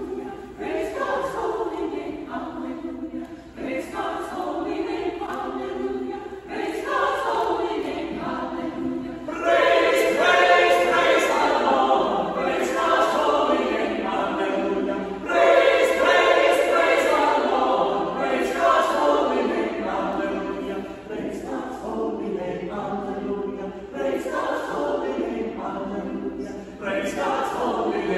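Mixed church choir of men's and women's voices singing together, swelling louder about ten seconds in and again a little past the middle.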